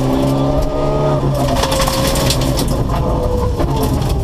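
Rally car engine running steadily at speed on a gravel stage, heard from inside the cabin, with gravel crackling and pattering against the car as it drives.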